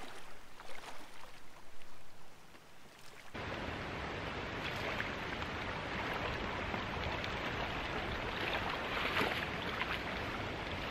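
River water flowing and splashing, uneven at first, then a steady rush of water from about three seconds in.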